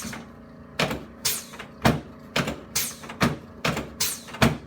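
A steady run of sharp clacks, about two a second, each trailing off in a short falling hiss.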